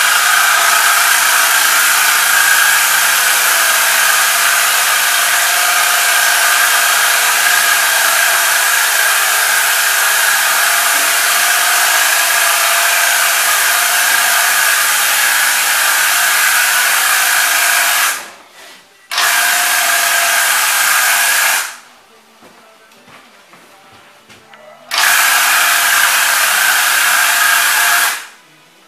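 Graco TrueCoat Pro II handheld electric airless paint sprayer running while spraying, a loud steady buzz with hiss. It cuts out about 18 seconds in, runs again for a couple of seconds, pauses for about three seconds, then runs for another three seconds as the trigger is pulled and released.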